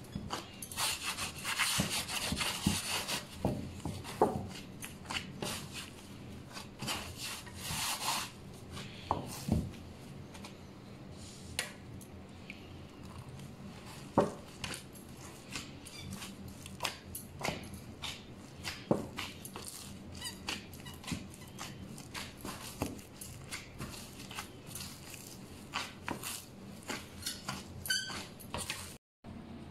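Bread dough being handled and worked by hand: rubbing and scraping with many scattered soft knocks and taps, busiest in the first few seconds.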